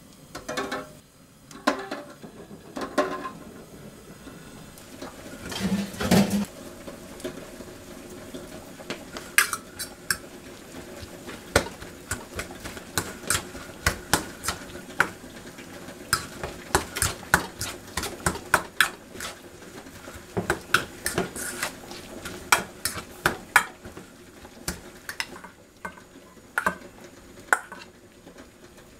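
A metal fork clinking and scraping against a stainless steel bowl in quick, irregular taps while tossing shredded cabbage with mayonnaise.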